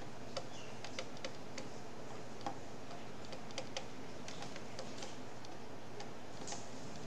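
Light, irregular clicks of a pen stylus tapping on a tablet while handwriting, over a steady faint hiss.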